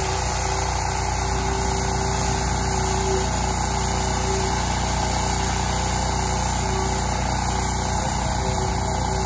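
Pressure washer running steadily, its turbo-tip nozzle on an extension wand spraying water against aluminum siding to strip chipped paint: an even hiss over a steady low hum.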